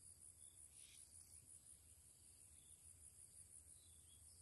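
Near silence: a faint, steady, high-pitched insect trill over a low background rumble.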